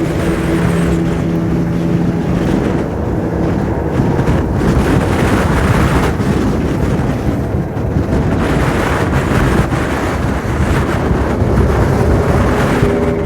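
Loud, continuous rushing noise with a deep rumble, rising and falling slightly, with a held musical tone fading out in the first couple of seconds.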